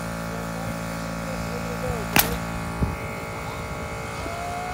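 Small portable air compressor running with a steady buzzing hum while pressurising a water bottle rocket; a little over two seconds in, a single sharp pop as the rocket is released and launches, and the compressor's low hum cuts off just under a second later.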